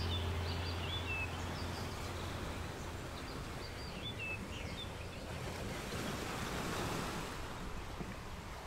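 Sea waves washing on a shore, an even rushing that swells and ebbs, with small birds chirping a few times in the first second and again about four seconds in. A low held music tone fades out during the first second or two.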